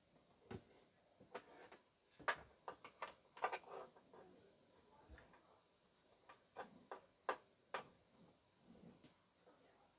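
Scattered light clicks and taps, irregular and about a dozen in all, from hands working at the back of a black electronics unit and handling its cables. The loudest come about two and a half seconds in, around three and a half seconds, and past seven seconds.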